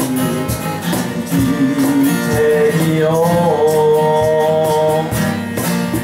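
A man singing a Japanese folk song to his own acoustic guitar, sliding up into a long held note about halfway through while the guitar keeps strumming.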